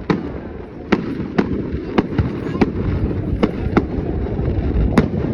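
Fireworks going off: about eight sharp, irregularly spaced bangs over a steady low rumble.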